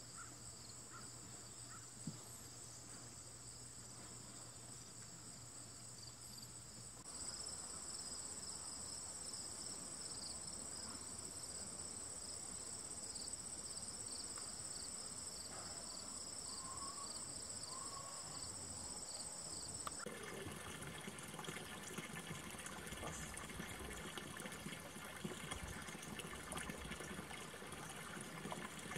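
Outdoor ambience led by a steady high chirring of insects, crickets. It grows louder at a cut about seven seconds in. About twenty seconds in it gives way to a rough, even hiss.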